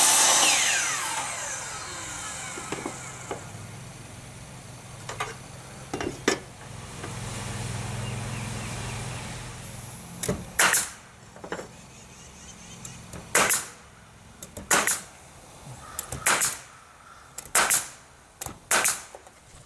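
A power saw winds down after a cut, its whine falling away over a couple of seconds. Later comes a low motor hum, then a run of sharp short bangs, mostly in pairs, as trim is fastened.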